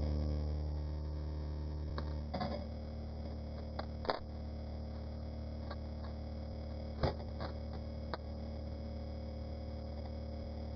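A steady low hum with a few short, sharp light clicks scattered through it; faint music fades out in the first two seconds.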